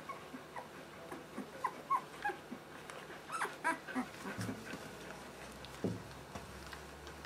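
Two-week-old Siberian husky puppies squeaking and whimpering as they jostle to nurse: many short, high squeaks scattered throughout, busiest around the middle, with one lower, falling cry near the end.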